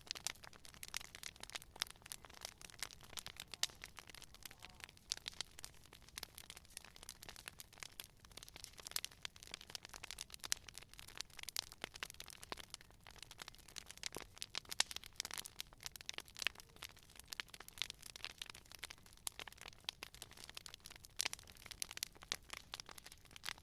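Wood fire crackling, with many small irregular pops and snaps, dense and continuous.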